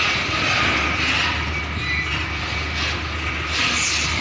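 Diesel engine of a container truck running at low revs as the rig slowly backs its trailer, with a steady low hum and a hiss that swells near the end.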